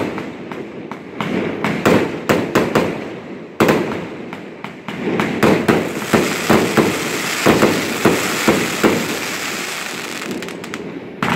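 Fireworks going off: an irregular run of sharp bangs and pops, many close together, growing denser from about four seconds in and thinning out near the end.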